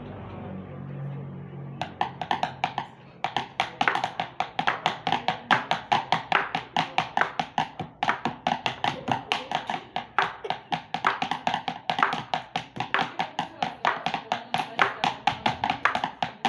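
Rapid tapping on household objects used as improvised percussion, starting about two seconds in and keeping up a fast, even rhythm of about five or six taps a second.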